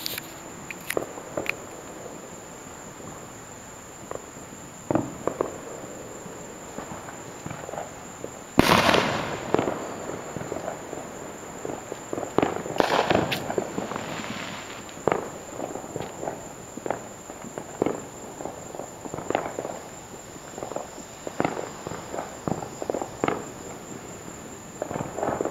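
Fireworks going off: scattered sharp bangs and pops, one loud blast about eight and a half seconds in, then quick runs of firecracker crackling through the second half.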